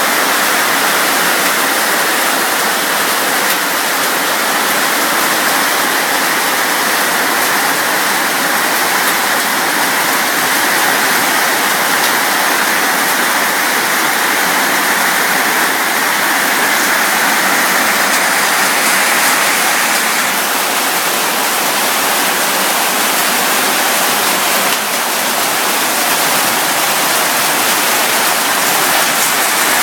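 Heavy rain falling in a steady, dense hiss with no breaks.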